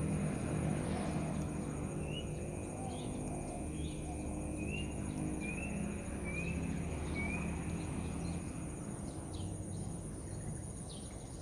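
Birds calling in a series of short rising chirps, about one every half second or so through the first two-thirds, with a few sharper notes later, over a steady high-pitched insect drone and a low rumble.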